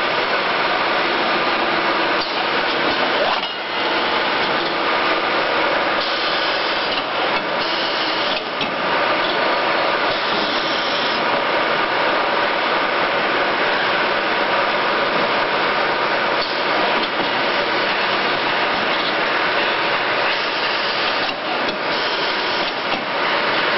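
Automatic shrink film wrapping machine running: a steady, loud mechanical clatter and hum from its conveyors and pushers, with occasional sharp knocks as the bottle groups are pushed and the film is fed.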